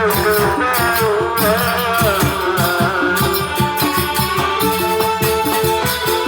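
Traditional folk music: a wavering sung melody over steady drumming and rattling percussion, the melody settling into longer held notes about halfway through.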